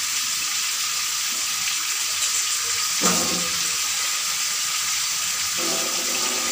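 Pangas fish frying in a pan of oil and spice paste, a steady sizzle, with a short louder noise about three seconds in.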